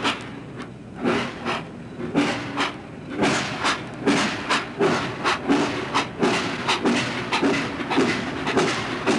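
Steam locomotive chuffing as it moves off, the exhaust beats quickening from about two to three a second.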